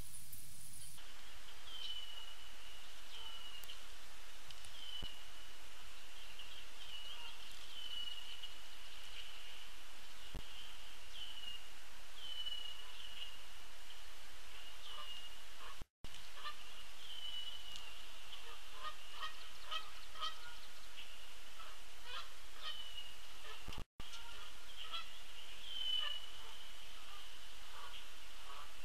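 A short, high call repeated about once every second or so from a pond-side animal. In the second half other small birds add scattered chips. The sound cuts out completely twice for an instant.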